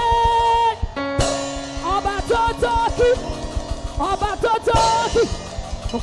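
Live worship music: a singer's melodic line with gliding, held notes over a band with a drum kit keeping a steady beat, and a sustained chord held about a second in.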